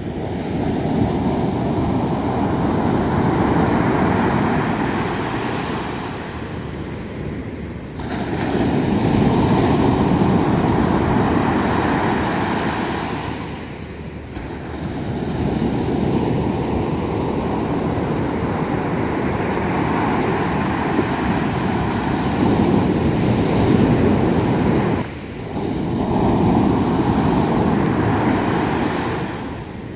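Sea surf breaking and washing up a sandy beach, swelling and easing with each wave, with a few sudden breaks where the recording cuts.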